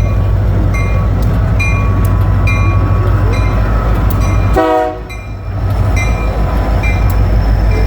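Diesel locomotive running with a loud, steady low rumble, and short high ringing notes repeating about once a second. A little past the middle there is a brief tone as the rumble dips for a moment.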